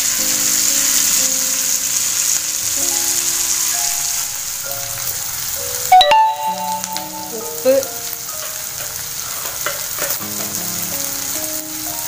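Chopped onions and dried fish sizzling as they fry in oil in a kadai, with a sharp knock about halfway through.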